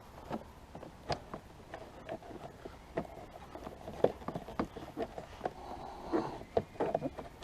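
Irregular light clicks, knocks and rustling of hands working the plastic body panels of a Can-Am Spyder RT motorcycle while lining them up.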